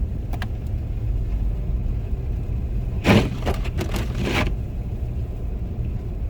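Steady road and engine rumble inside a car moving slowly through snow, with a loud scraping pass of the windshield wipers about three seconds in.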